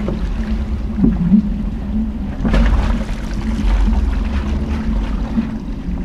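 Jeep Cherokee Trailhawk running slowly over a rocky off-road trail: a steady engine drone over a low rumble, with a brief louder rush of noise about two and a half seconds in.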